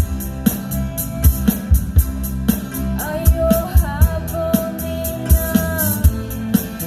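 Band playing a song with a singer, drum kit and guitar: the drums keep a steady beat under a sung melody with long held notes.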